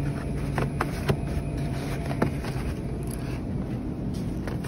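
A cardboard egg carton handled in a wire shopping cart: a few light clicks and taps, over a steady low rumble.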